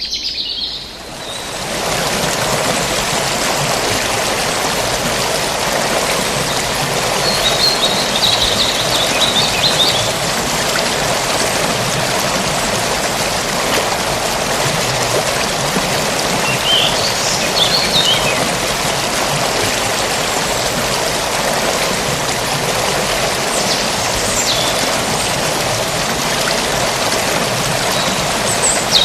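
Forest stream flowing steadily, the rush of water coming up over the first second or two. Small birds chirp briefly a few times over it.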